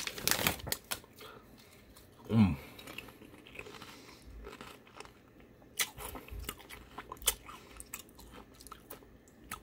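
Someone chewing crunchy Whole Shabang potato chips close to the microphone, with scattered sharp crunches. About two seconds in there is a short hum that falls in pitch.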